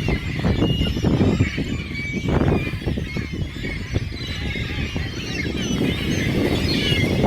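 A crowd of gulls and ducks calling: many short, overlapping squawks and cries with no break, over a low rumbling noise.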